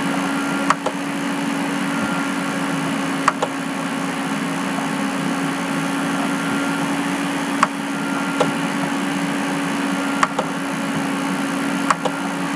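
Computer mouse clicking, a quick double click each time as the button is pressed and released, about five times, over a steady low hum and hiss of room or recording noise.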